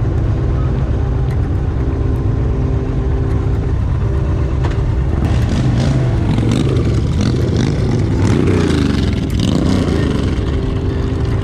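Indian Chief Bobber's V-twin engine running under the rider. The note holds steady at first, then shifts and grows a little between about five and ten seconds in, and settles again near the end.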